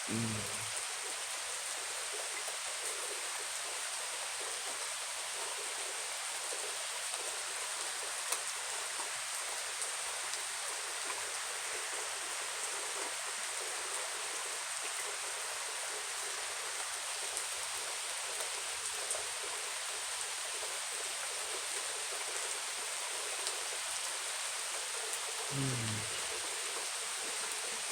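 Steady rain falling, an even hiss, with a constant high-pitched drone running above it.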